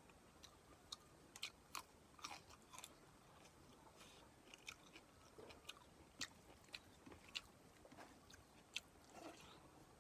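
Someone chewing food close to the microphone, faint but clear: a scatter of short, sharp mouth clicks and smacks at an uneven pace.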